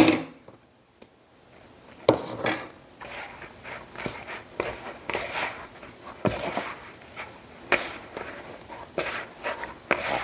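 A hand kneading soft, sticky bread dough in a glass mixing bowl: irregular squishing and patting strokes that begin about two seconds in and run on at a few per second.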